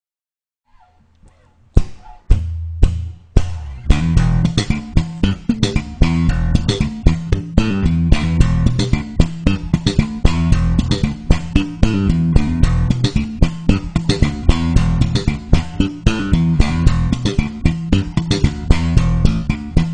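Four-string electric bass played slap style through an amplifier: after about a second of near silence, a few single sharp notes, then from about three and a half seconds in a steady groove of thumb slaps and plucked (popped) notes on the higher strings.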